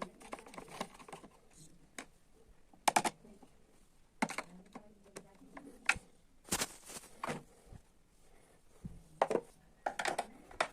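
Irregular clicks, taps and short clatters of hard plastic and small parts being handled, as in taking apart a vacuum cleaner's housing; the loudest clatter comes about three seconds in.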